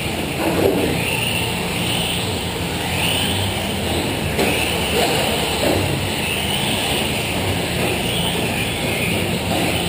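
Several electric 1/10-scale four-wheel-drive short-course RC trucks racing. Their motors whine, rising and falling in pitch over and over as the trucks speed up and slow for the corners.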